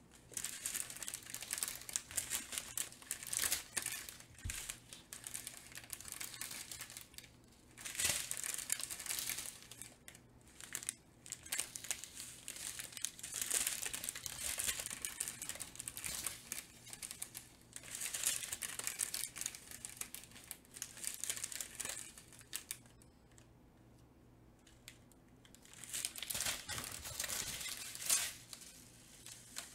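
Small plastic bags of diamond painting drills crinkling as they are handled, in repeated bursts, with a lull of a few seconds about three-quarters of the way through.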